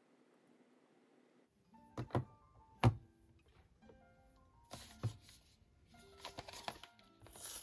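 Background music with a plucked-sounding melody, entering about a second and a half in, mixed with sharp knocks and taps. The loudest knock comes about three seconds in.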